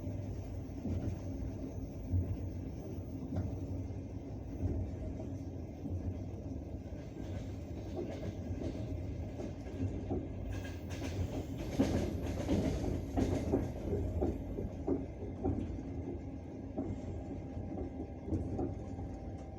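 Passenger train running, heard from inside the carriage: a steady low rumble with wheels clicking over the rail joints. About halfway through, a few seconds of sharper, brighter clattering. Near the end, a faint steady tone: the rails singing.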